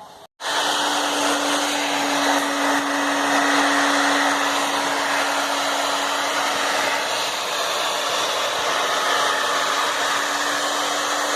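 Hair dryer blowing steadily, with a constant hum under the rush of air, starting about half a second in. It is being used to heat a dried-out rubber refrigerator door gasket to soften it so the door seals again.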